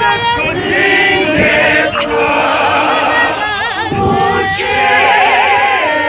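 Small group of women singing a praise and worship song a cappella in harmony, several voices moving together without instruments.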